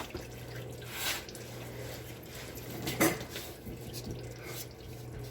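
Engine oil dripping into a drain pan, with a few light metallic clinks and a steady low hum.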